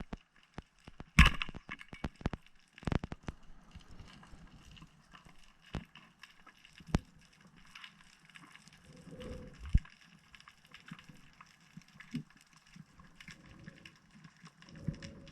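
Underwater sound: scattered sharp clicks and crackles, with a loud sharp click about a second in and a few more strong clicks around three seconds.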